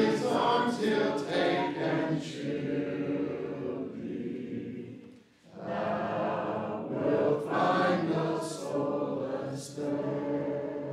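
Church congregation singing a hymn a cappella, many voices together, with a short break between lines about five seconds in.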